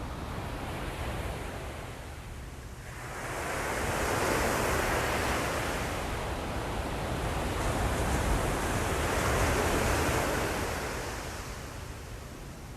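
Ocean surf: a wave swells about three seconds in, breaks and washes loudly for several seconds, then fades away.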